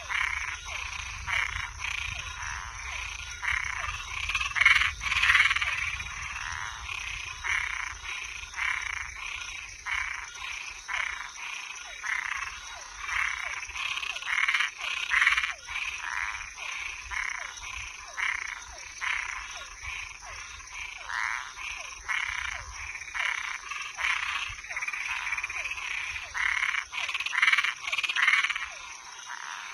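A chorus of frogs and treefrogs calling, many short overlapping calls repeating several times a second, over a steady high-pitched drone.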